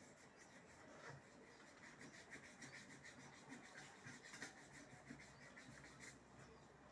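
Faint, quick rubbing or scraping strokes, several a second, fading out near the end.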